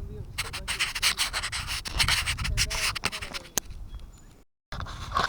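Dense, rapid rubbing and scraping for about three seconds, then a brief dead cut near the end.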